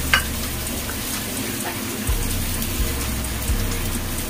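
Soy-sauce broth simmering and sizzling around tofu in a frying pan: a steady crackling patter. A single sharp clink sounds just after the start.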